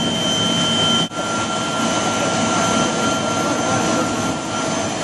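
Steady whine and rumble of a running aircraft turbine, with high steady whistling tones over a dense noise. The sound drops out briefly about a second in, then carries on the same.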